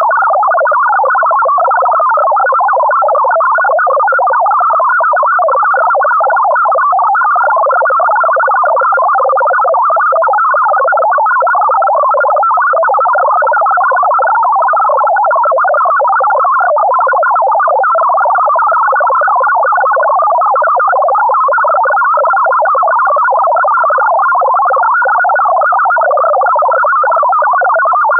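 MFSK64 digital data signal centred on 1000 Hz: a loud, continuous warble of rapidly hopping tones between about 500 Hz and 1.5 kHz, carrying encoded text to be decoded by listeners' software.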